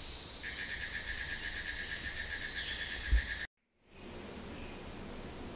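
Evening insect chorus: a steady high-pitched insect buzz, joined about half a second in by a cricket's rapid, even chirping. A soft low thump comes just past the middle, then the sound cuts off suddenly and only a fainter steady hiss remains.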